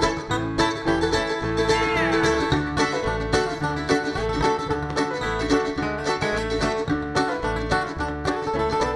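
Acoustic string band playing an instrumental break: quick plucked notes over a steady bass beat.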